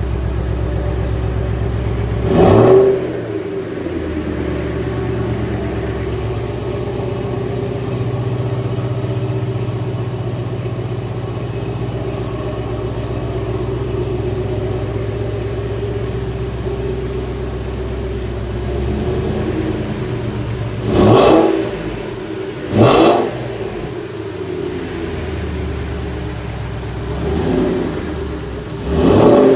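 2010 Shelby GT500's supercharged 5.4-litre V8 idling steadily, revved in five quick throttle blips that each rise and fall: one a couple of seconds in, the other four in the last ten seconds.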